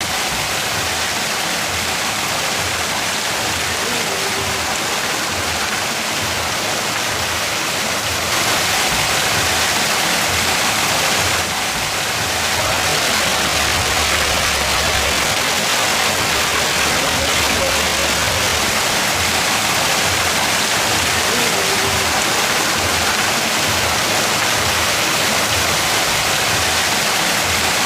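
Steady rush of falling water from a waterfall, an even hiss with no pauses, growing a little louder about eight seconds in.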